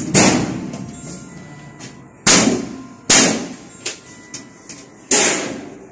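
Sheet-steel cabinet panels being knocked together during assembly: four loud metallic bangs at uneven intervals, each ringing out briefly, with a few lighter clicks of metal between them.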